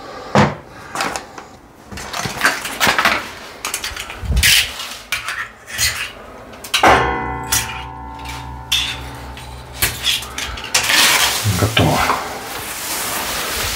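Snap-off utility knife clicking and scraping against the tiled wall as it trims the protruding ends of plastic wall plugs flush. About halfway through a steady humming tone holds for some four seconds, followed by rustling.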